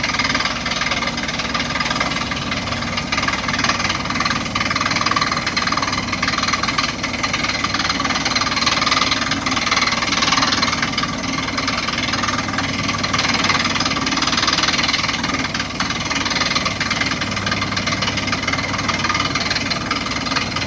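Borehole drilling rig running steadily, its engine and drill making a continuous loud mechanical din with a fast, even rattle.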